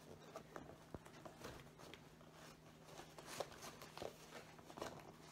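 Faint scratching and small clicks of fingers picking at the sealed flap of a cardboard LEGO set box, trying to open it, over a steady low hum.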